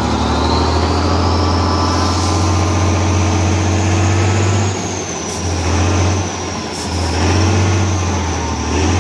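Heavy off-road trial truck engine working hard under load, easing off briefly twice past the middle, with a high whine that rises over the first few seconds and then holds.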